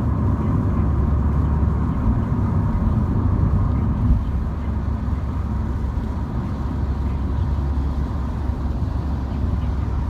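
Steady low rumble of a MINI car driving, heard from inside the cabin: engine and road noise, a little quieter from about four seconds in.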